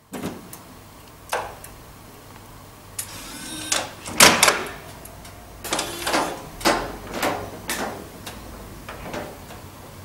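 Key inserted and turned in the key switch of a GU emergency-exit pushbutton station, with clicks at first, then a run of sharp clicks and clacks over several seconds, loudest about four seconds in, as the exit door's locking is released.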